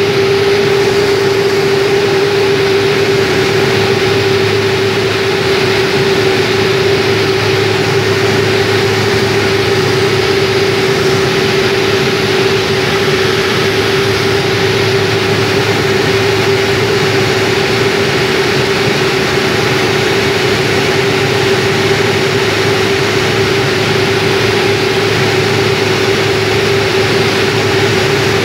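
Steady cabin drone of a small twin-engine propeller airplane in cruise, heard from inside the cabin: engine and propeller noise with one strong, unchanging hum.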